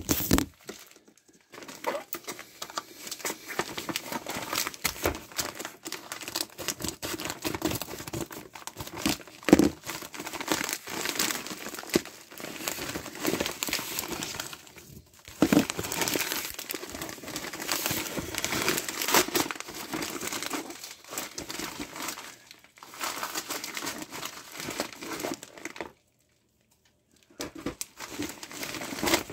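A mailed package being torn open and unwrapped by hand: continuous irregular crinkling and tearing of the wrapping. It stops abruptly for about a second near the end.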